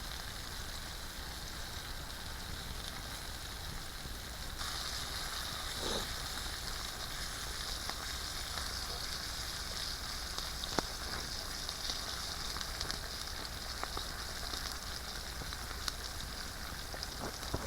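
Strip steak sizzling in hot oil over a campfire: a steady, hissing sizzle that grows louder about four and a half seconds in, with a few sharp pops.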